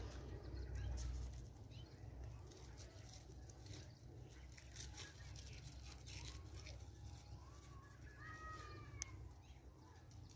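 Faint outdoor background: a low rumble on the microphone, heaviest in the first second or so, with a few short high chirps about two-thirds of the way in.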